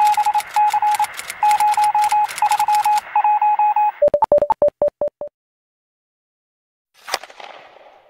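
Layered electronic sound effects: groups of quick beeps mixed with fast clicking of computer keys, then a run of about eight short, lower beeps. After a gap of silence, a single sharp crash about seven seconds in dies away, matched to a phone shattering.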